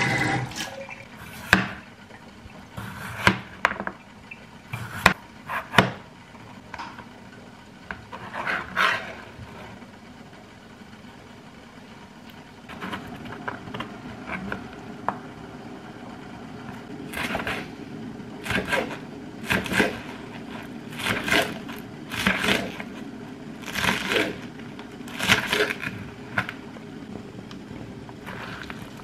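Chef's knife cutting vegetables on a plastic cutting board: a few scattered knocks at first, then regular cuts about one every second and a bit over a low steady hum in the second half.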